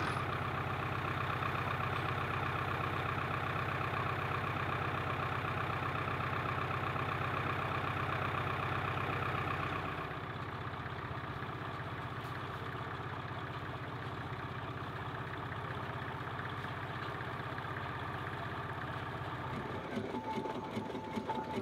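Vintage engines running steadily. About halfway the sound changes to a small vintage tractor engine running as it pulls a trailer, and near the end a rapid, rhythmic clatter from a machine starts.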